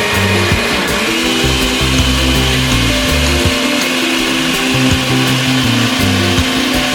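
Tatung TJC-1520A blender's motor running steadily with a whir, over background music with held low notes.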